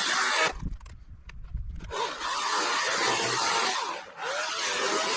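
EGO cordless electric chainsaw cutting through a dead limb in bursts. The motor and chain run under load with a hissing rasp. It stops for about a second and a half near the start and briefly dips again about four seconds in.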